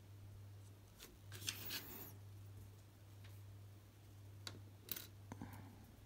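Small plastic clicks and snaps of a SIM card being pressed out of its plastic carrier frame: a short cluster between one and two seconds in, and a few more single clicks near five seconds, over a steady low hum.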